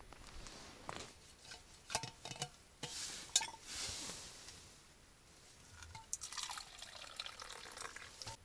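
A steel vacuum flask being opened, with several clicks and clinks of its cap, then liquid poured from it into its cup, splashing for the last couple of seconds.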